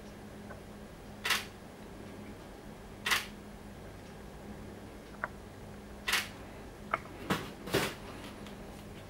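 Nikon Z6III shutter firing single frames, five separate clicks spaced irregularly, the last two close together, with a couple of fainter button clicks in between.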